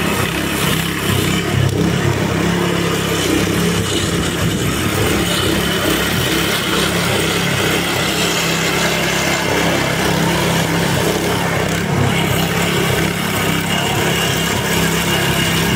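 Small single-cylinder petrol engine of a Weibang lawn scarifier running steadily at working speed as the machine is pushed across the lawn, its blades cutting through the thatch.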